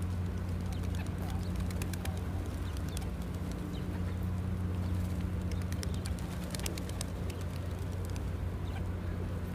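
A flock of feral pigeons cooing, with scattered short clicks and flutters as they move about, over a steady low hum.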